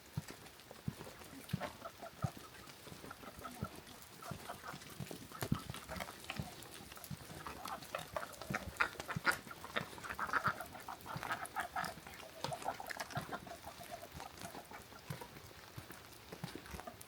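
Chickens clucking, loudest in the middle stretch, over the steady footsteps of someone walking.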